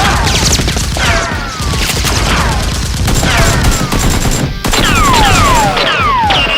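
Sustained rapid gunfire sound effects: a dense fusillade of shots, with repeated falling whistles like bullets whizzing past or ricocheting.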